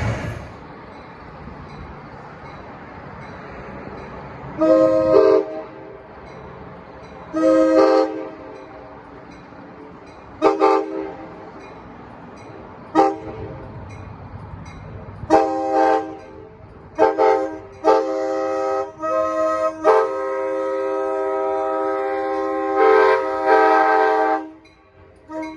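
Nathan K5LA five-chime air horn on an Amtrak Surfliner cab car, sounded in about ten separate blasts. Most are short toots, spaced a few seconds apart and then closer together, and the last is a long held blast of about four and a half seconds. A faint low rumble of the train continues between blasts.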